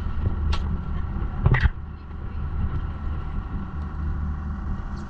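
An engine running steadily, with a couple of brief knocks about half a second and one and a half seconds in.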